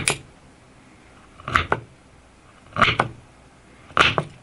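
Knife edge cutting through a 15 amp, 110 volt power cord: four short, sharp snips about a second or so apart, some of them doubled.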